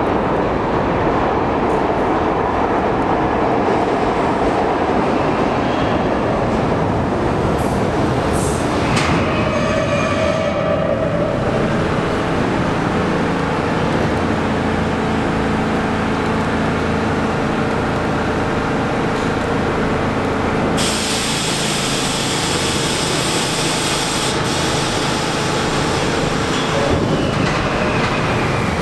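Budd R32 subway cars running through an underground station, a steady loud rumble of wheels on rail. About eight to ten seconds in there are a few sharp clicks and a brief squeal. A sharp hiss cuts in about two-thirds of the way through and holds.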